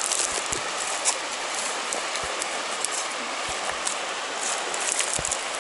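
Steady rushing of a muddy, high-running trout creek, with a few faint knocks.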